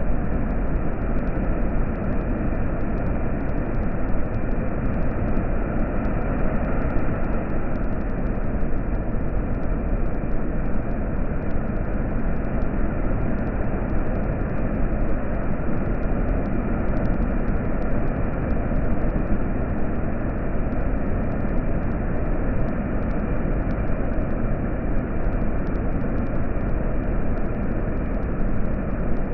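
Water rushing through a dam: a loud, steady noise, heaviest in the low range, that never lets up.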